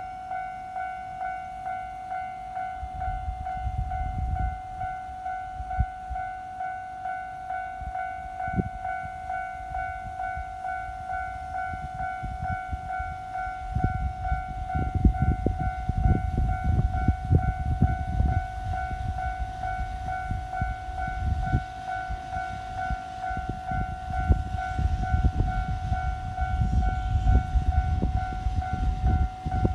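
Japanese level-crossing warning alarm ringing on and on in an even ding-ding, about one and a half rings a second. A train passes through it: a low rumble and wheel clatter come in briefly a few seconds in, then grow loud over the second half.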